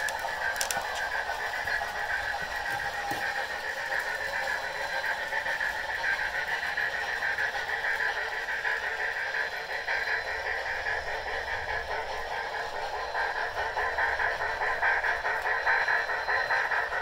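Two DCC sound-equipped Bachmann model steam locomotives, a GS4 and a Niagara, running with their onboard sound decoders playing steam-engine sounds through small speakers. The sound is steady and grows a little louder near the end as the Niagara passes close.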